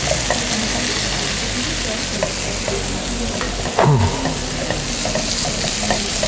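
Butter and flour sizzling in a nonstick pan while a wooden spatula stirs and scrapes through them, with light ticks of the spatula against the pan: the start of a roux for a cream sauce. A brief falling tone sounds about four seconds in.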